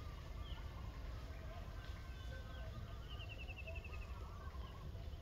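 Faint outdoor ambience: a steady low rumble with scattered high chirps and a quick, evenly repeated trill of about ten notes around three seconds in.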